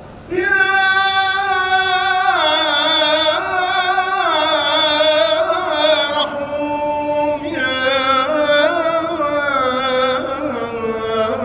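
A solo male voice chanting a Syriac church hymn into a microphone: long held notes with a wavering ornament, stepping from note to note and sinking gradually lower. It begins about half a second in, after a short breath.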